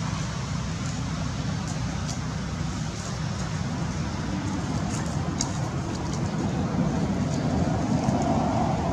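Steady low rumbling background noise, with a few faint, short high ticks and rustles.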